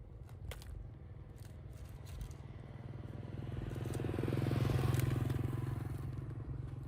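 A motor vehicle passing by, its engine and tyre noise growing louder toward the middle and then fading away, with a few faint clicks early on.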